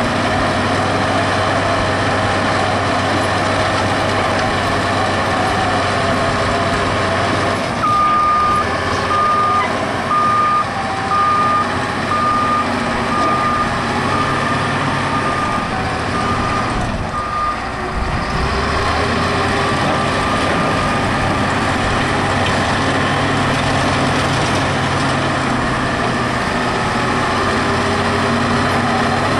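Caterpillar 815B soil compactor's diesel engine running steadily under load as it works fill. From about eight seconds in, its reversing alarm beeps about once a second, roughly ten times. The engine note drops briefly as the beeping stops, then picks back up.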